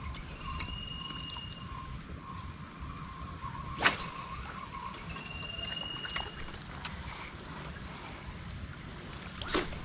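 Two sharp swishes of a light spinning rod being cast, one about four seconds in and another near the end, over a steady high insect drone and a short whistled call repeating every five seconds or so.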